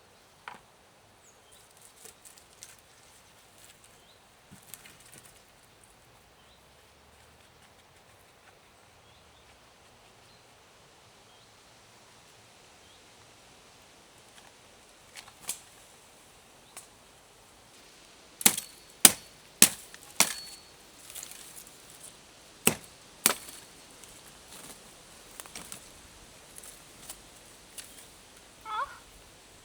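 Sharp strikes of a tool on wood: four in quick succession, then two more a couple of seconds later, some followed by a brief high ring. Scattered lighter knocks come earlier.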